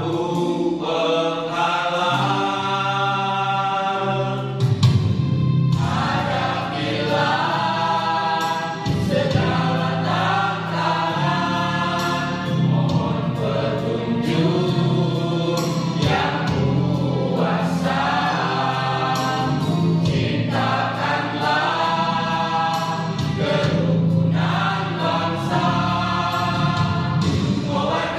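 Mixed choir of men's and women's voices singing a song in harmony, with electronic keyboard accompaniment holding steady low notes underneath.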